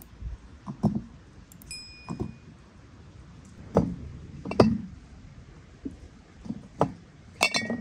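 Chunks of quince dropped one at a time into glass bottles and jars: a string of irregular clinks and dull knocks against the glass, with one bottle ringing briefly about two seconds in.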